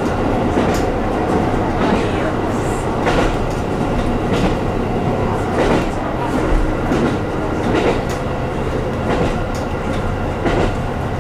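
A KiHa 150 diesel railcar under way, heard from inside the car: the diesel engine running steadily under the rumble of wheels on rail, with a sharp click from the track every second or two.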